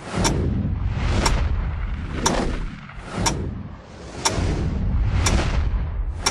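Countdown sound effects of the Times Square style: a swelling whoosh ending in a sharp booming hit, once a second, over a steady deep rumble.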